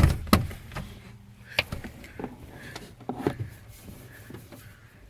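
Handling noise: a series of sharp knocks and clicks, the loudest at the start, then a few more spread irregularly through the seconds that follow.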